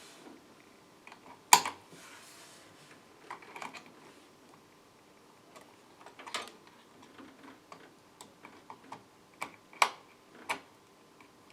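Scattered, irregular clicks and taps from hands working at a computer, with a few sharper clicks standing out, the loudest about a second and a half in and two more near the end.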